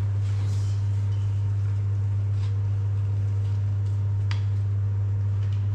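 A steady low hum at one constant pitch, with a couple of faint taps partway through.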